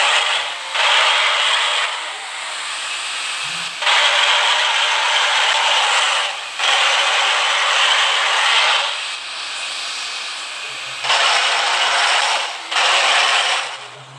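Repaired three-trumpet truck air horn under test, let off in a string of blasts lasting one to three seconds each that start and stop abruptly. The blasts come out as a loud rush of air with no clear horn note.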